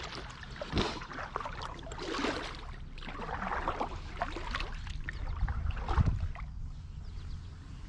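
Kayak paddle strokes: repeated splashing swishes as the paddle blades dip into and lift out of the water. A low rumble runs underneath, and there is a dull thump about six seconds in.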